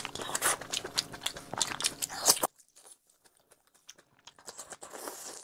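Close-miked chewing of spicy seafood, with dense wet crunches and clicks of the mouth. About halfway through it cuts off suddenly, and only faint, sparse chewing clicks follow.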